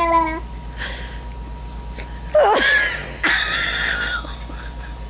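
Baby vocalizing: a held note that ends just after the start, then a squeal that falls in pitch about two and a half seconds in, followed by a breathy high squeal lasting under a second.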